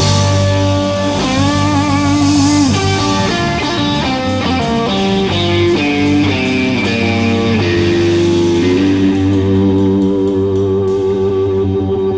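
Live blues-rock band playing, led by electric guitar soloing with bent, wavering notes over bass and drums. About nine seconds in, the band settles into a long held chord.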